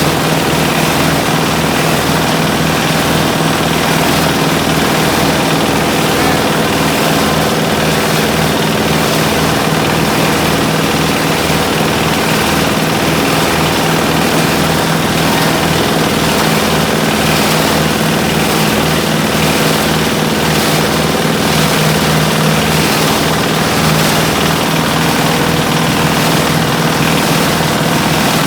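Small engine of an engine-driven grass shredder and crusher running steadily at a constant speed, with an even low throb.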